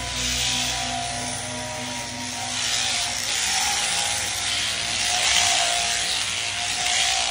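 Shaft-driven sheep shearing handpiece running steadily, its comb and cutter buzzing through the fleece with a continuous hiss that swells and eases slightly as the blows go on.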